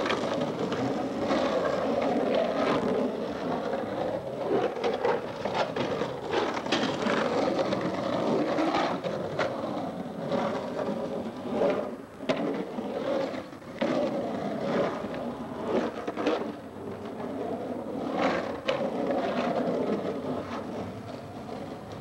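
Skateboard wheels rolling over the rough, cracked concrete of an empty swimming pool, a steady grinding rumble broken by sharp clacks and knocks of the board on the concrete, the loudest about twelve seconds in.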